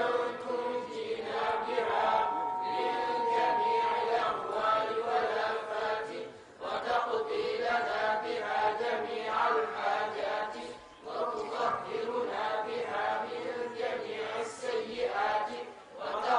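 Sufi religious chanting by voices, in sung phrases of four to five seconds with short breaks between, some notes held long.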